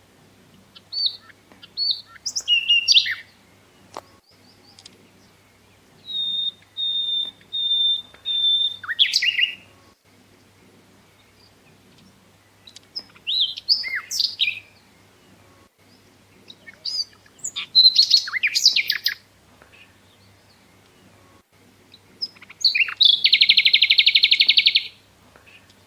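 Birdsong in separate phrases every few seconds: quick chirps and slurred notes, a run of about five even whistled notes, and near the end a fast buzzy trill.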